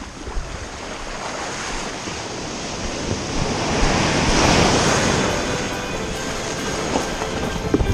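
Ocean surf breaking and washing around a kayak close to the microphone, a rushing noise that swells to its loudest about halfway through as a wave breaks over the bow, then eases.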